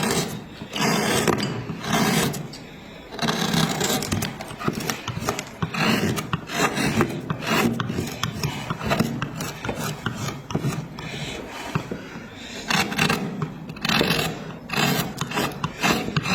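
Wood being worked by hand with a rasp or scraping carving tool: rough scraping strokes on wood, roughly one a second, with short pauses between them.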